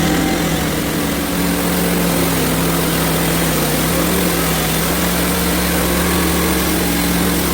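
Hudson Homesteader HFE30 bandsaw mill's engine running steadily under load as the band blade saws through a maple log.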